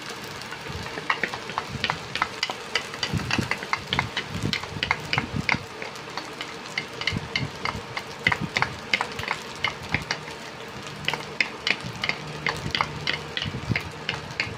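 Fried rice sizzling in a stainless steel pan as it is stirred and scraped, with many short sharp clicks of the utensil against the pan over a steady frying hiss. Oyster sauce has just gone in and is being worked into the rice.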